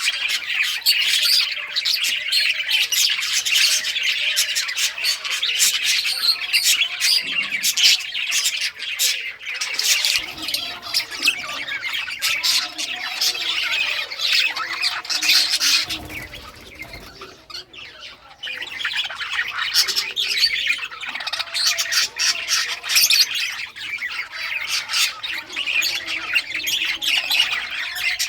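A flock of budgerigars chirping and chattering nonstop in rapid high-pitched calls, dropping to a brief lull a little past halfway before picking up again.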